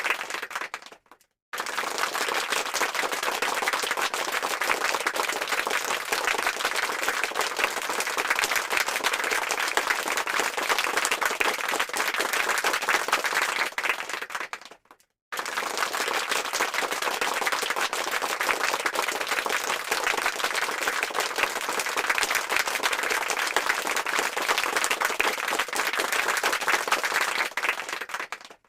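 Crowd applause, many hands clapping in a dense, even patter. It fades out and breaks off into silence about a second in and again about halfway through, then starts again at full strength each time.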